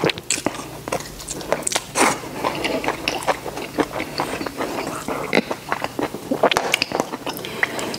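Close-miked chewing and lip-smacking of tender braised beef eaten off the bone: irregular wet smacks and small clicks.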